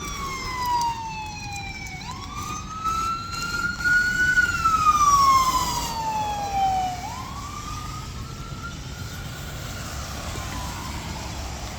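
Ambulance siren on a slow wail, its pitch sliding up and down in cycles of about five seconds. It is loudest midway and fades away near the end.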